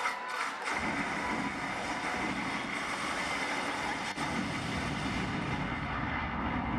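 Auditorium crowd cheering and applauding, a steady din of voices and clapping that swells up about a second in after a few shouts.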